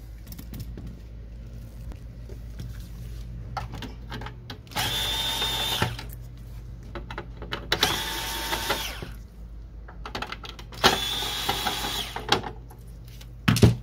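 Cordless drill/driver backing out the screws that hold a laser printer's laser unit: three separate runs of motor whine, each a second or so long, one screw after another. A short knock follows near the end.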